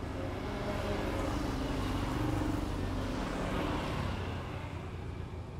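A motor vehicle passing by on the street: engine and tyre noise swell to a peak about two seconds in, then fade away.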